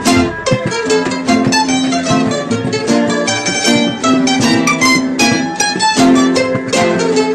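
Background music led by a plucked string instrument, a quick run of picked notes over held tones.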